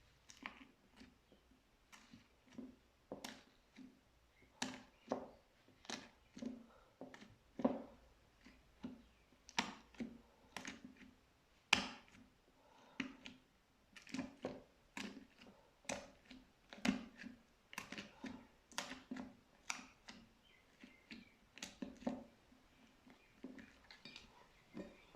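Slime being pressed and squished by hand, giving irregular sharp pops and clicks about one to two a second as air pockets burst, each with a soft squelch underneath.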